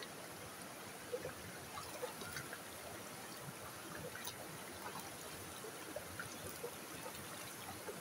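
A creek running steadily, with small irregular splashes and trickles of water as hands wash a bare foot in it.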